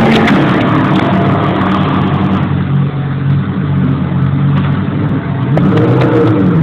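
Audi R8 LMS GT3 race car's 5.2-litre V10 engine idling, with a brief rise and fall in revs near the end.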